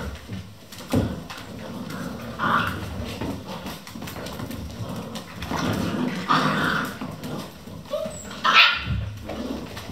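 A litter of vizsla puppies play-fighting, with a steady scuffle of small bodies and several short yelps and barks, the loudest about eight and a half seconds in.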